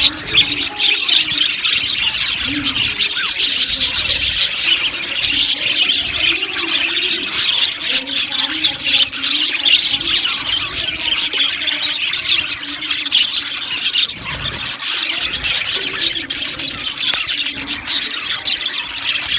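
A flock of budgerigars chattering and chirping continuously: many birds at once in a dense, steady chorus of rapid chirps and squeaks.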